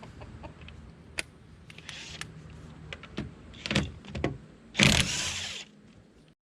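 Power tool running in short bursts as it spins lug nuts off a wheel, with clicks between bursts and the loudest burst about five seconds in.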